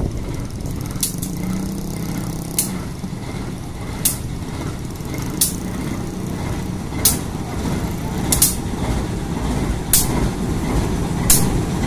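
A KAI CC 206 diesel-electric locomotive and loaded hopper wagons crawling past over a steel girder bridge. The low running of the diesel engine carries on steadily, and a sharp wheel click over the rail joints comes about every second and a half.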